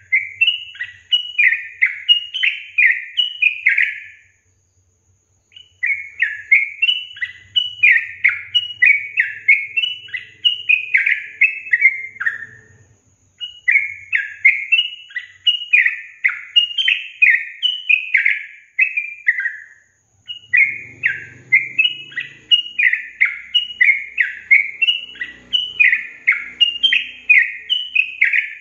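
Yellow-vented bulbul (trucukan) singing in fast runs of clear down-slurred notes, about three a second. The song comes in four bouts separated by brief pauses.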